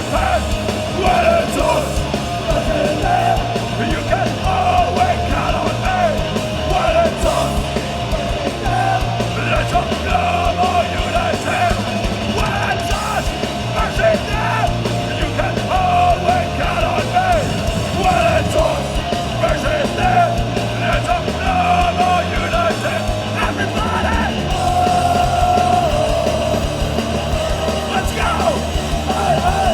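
Hardcore punk band playing live at full volume: distorted guitars, bass and pounding drums with shouted vocals.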